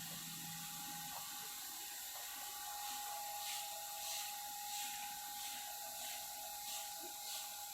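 Outdoor ambience with a steady high whine, and from a few seconds in, short chirps repeating about once or twice a second.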